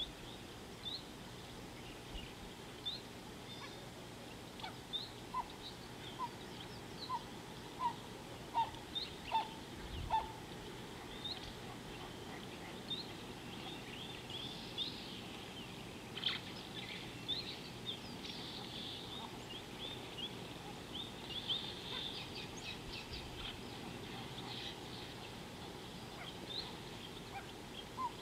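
Wild birds calling: many short high chirps, busiest in the middle, with a series of lower rising notes repeated roughly once a second for a few seconds, over a steady faint background hiss.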